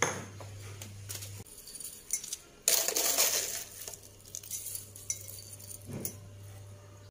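Metal spoon clinking and scraping against a glass jar and a ceramic plate as crispy fried shallots are scooped out and sprinkled over a salad. The loudest scrape comes about three seconds in.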